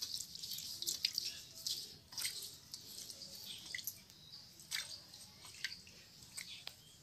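Water splashing and dripping in a shallow metal pan as feet are washed by hand: small irregular splashes and drips.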